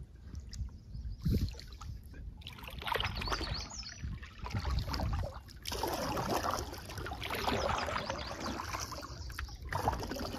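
Canoe paddle strokes: the paddle dips and pulls through the water in splashy swishes every second or two, over a low wind rumble on the microphone.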